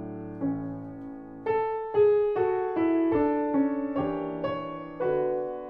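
Background piano music: a slow, gentle melody of single struck notes over held chords. Each note fades after it sounds, with a new one about every half second from around a second and a half in.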